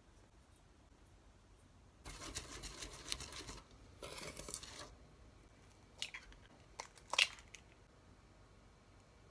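A wire whisk scratching through flour and sugar in a stainless steel mixing bowl, in two spells of stirring, followed by a few sharp knocks, the loudest about seven seconds in.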